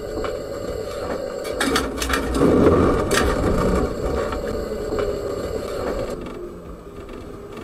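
Tram cab noise: the steady rumble of a tram running on its rails, with a few sharp clicks and knocks, louder for a moment about two and a half seconds in.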